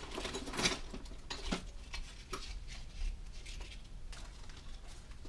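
Off-camera rummaging through tools: small metal objects clinking and knocking a few times at irregular intervals, the loudest about half a second in.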